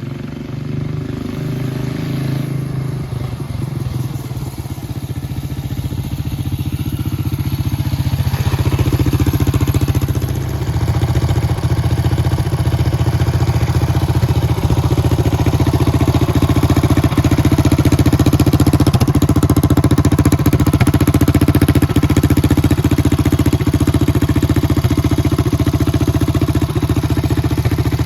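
Small engine of a chopper-style mini bike running under way, growing louder over the first ten seconds, then holding a steady pitch at cruising speed.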